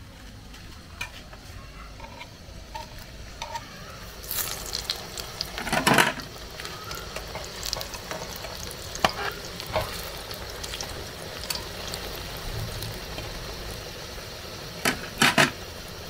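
Plantain dough snacks frying in hot oil in an aluminium pan, with a steady sizzle. A metal fork and spatula clink and scrape in the pan as pieces are added and turned, loudest about six seconds in and again near the end.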